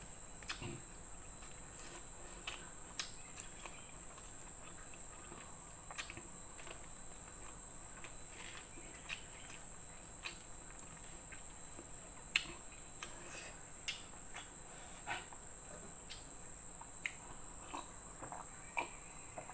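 Close-up eating sounds: scattered small clicks and smacks of chewing, over a steady high-pitched insect drone.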